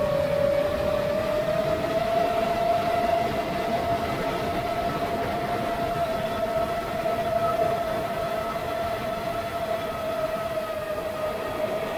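7-inch FPV quadcopter's brushless motors and propellers whining in flight, a steady droning tone over rushing air noise. The pitch climbs a little about a second in as the throttle comes up, then holds and eases slightly near the end.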